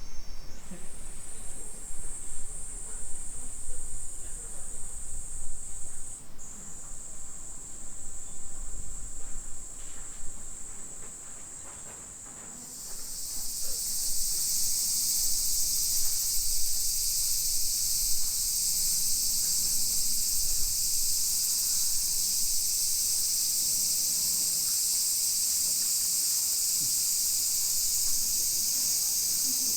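Insects chirring steadily in a high, hissing drone. A much louder insect joins about twelve seconds in and carries on without a break.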